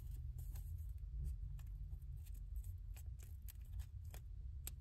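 Faint ticks and rustles of a Pokémon trading card being slid into a thin plastic card sleeve, over a low steady rumble inside the car.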